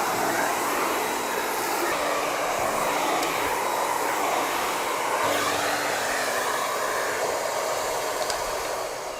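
Miele Complete C3 cylinder vacuum cleaner running, drawing air through its parquet brush on a hard floor. The steady rushing noise shifts slightly in tone as the brush moves, then fades near the end.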